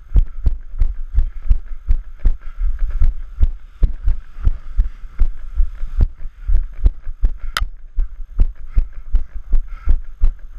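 A trail runner's footfalls on a dirt and stony path, dull low thuds in an even rhythm of about three steps a second. One brief sharp tick a little past seven seconds in.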